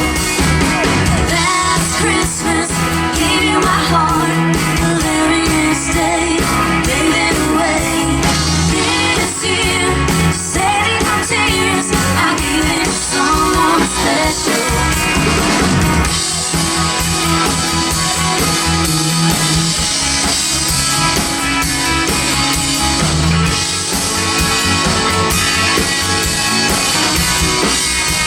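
Live band music: a woman singing a song backed by guitar and drums, played continuously.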